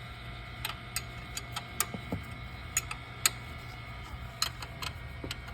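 Irregular sharp metallic clicks and ticks from hand tools being worked, a couple a second, over a steady low hum.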